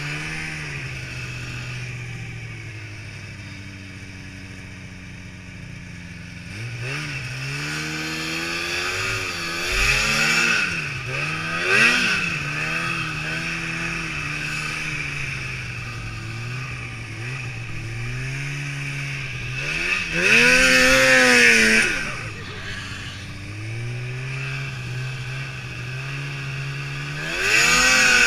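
Snowmobile's two-stroke engine, heard from the riding sled: running low and steady at first, then revved again and again in rising and falling surges. The loudest surges, about two-thirds of the way through and near the end, come with a loud rushing noise.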